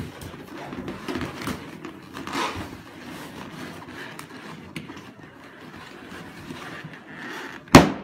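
Latex balloons rubbing and squeaking against a husky's muzzle as it noses and bites at them, with small scrapes and taps. Near the end, one sharp, very loud bang: a balloon popping.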